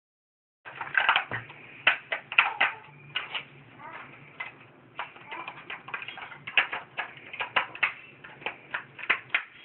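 Irregular plastic clicks and clatter from hands handling a toy RC helicopter's remote control, starting about half a second in.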